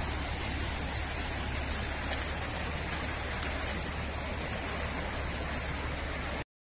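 Steady rushing noise of a fast floodwater current swollen by heavy rain, with a deep rumble underneath. It cuts off abruptly near the end.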